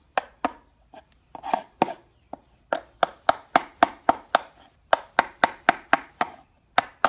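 A steel claw hammer tapping the wooden handle of a chisel as it cuts into a wooden door jamb, paring the hinge recess so the hinge sits flush. A few scattered taps come first, then a steady run of about four sharp taps a second, with a short pause near the end.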